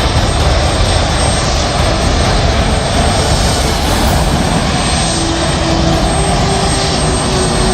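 Aircraft engines running loud and steady, a dense rush with deep rumble; a faint steady tone joins about five seconds in.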